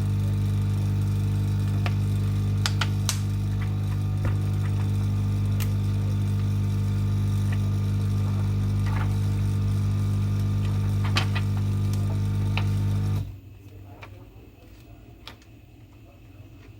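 Hot-air rework tool blowing with a steady low hum, switched off abruptly about thirteen seconds in. Scattered light clicks throughout.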